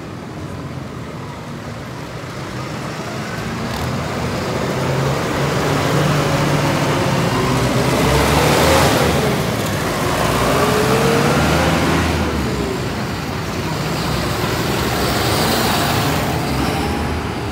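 Large diesel tractors driving past close by one after another, the engine note swelling and shifting in pitch as each comes near and fading as it moves off; the loudest pass is about halfway through, with another near the end.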